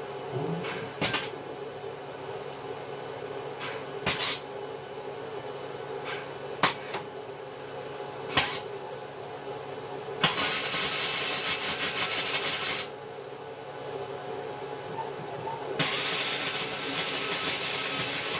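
Stick (arc) welding: two runs of steady arc crackle and hiss, about two and a half seconds each, over the steady hum of the welder. Sharp metal taps come between them as the electrode is struck and the work is knocked.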